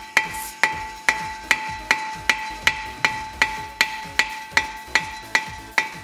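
Hammer striking a rusted-on front brake disc rotor in a steady rhythm, about two to three blows a second, the cast-iron disc ringing on between strikes. The rotor is seized to the hub by rust and is being knocked loose after penetrating oil.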